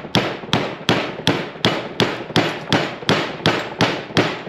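Small sledgehammer striking a steel socket in steady blows, about three a second, each ringing briefly. It is driving a new bearing onto an alternator rotor shaft.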